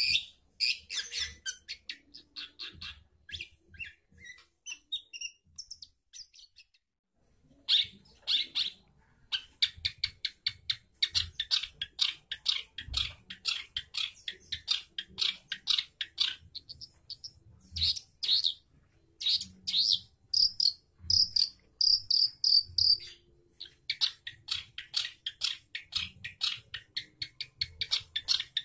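Long-tailed shrike singing a long run of rapid, scratchy chattering notes, with a break of about a second and a half some six seconds in and a few clearer whistled notes about twenty seconds in.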